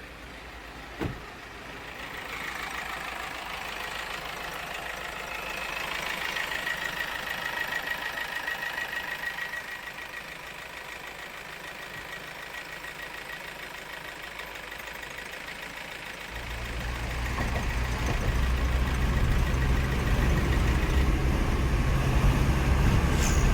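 Mahindra Marazzo common-rail diesel engine running smoothly after a new high-pressure fuel pump, with no knocking heard. It is fairly quiet at first, and about two-thirds of the way through a louder low rumble sets in and holds.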